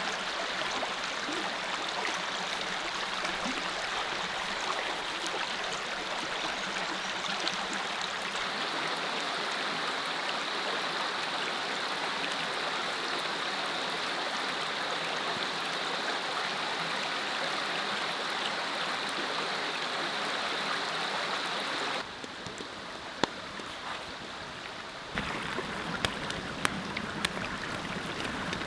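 Mountain creek flowing steadily over rocks, a constant rushing. It drops quieter for about three seconds past the middle, and a few sharp clicks stand out near the end.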